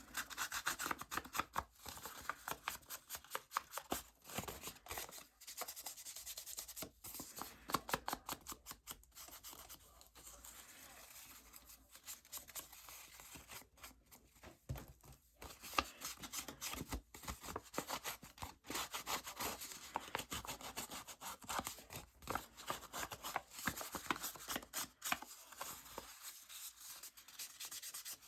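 Paper being rubbed and handled by hand, in runs of quick, scratchy rubbing strokes.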